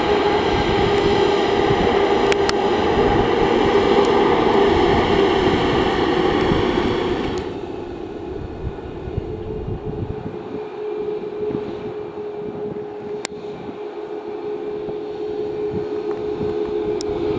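Airbus A220 with Pratt & Whitney geared turbofans, loud jet noise with a steady whine as it lands. After a sudden cut about seven and a half seconds in, a Boeing 737 MAX 8's CFM LEAP engines run quieter at taxi power with one steady whining tone.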